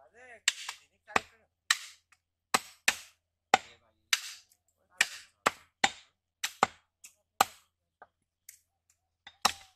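Heavy cleaver chopping beef on a wooden log chopping block: a steady run of sharp chops, roughly two a second, with a short pause near the end.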